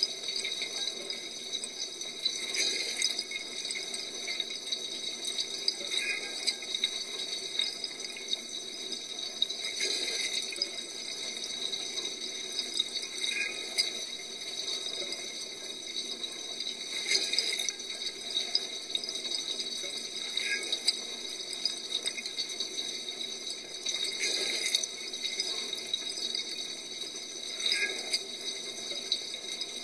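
Dishwasher washing, heard from inside the tub: water spraying and splashing over the dishes with a light rattle, swelling louder about every three to four seconds.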